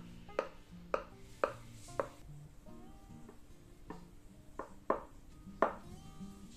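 A sharp knife pressed down through layered yufka pastry, its blade tapping the bottom of a glass baking dish in a series of sharp clicks, over soft background music.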